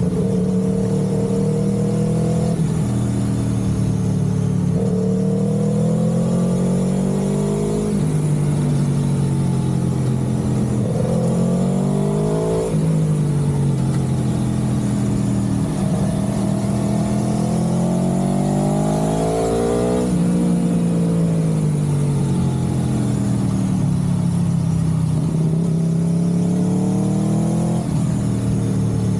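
A road vehicle's engine running under way. Its pitch climbs slowly as it accelerates, drops sharply a few times as at gear changes, and falls away for a while in the middle as it slows.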